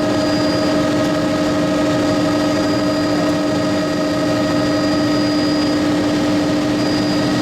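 Helicopter in flight: a steady, loud drone with constant humming tones that hold level throughout.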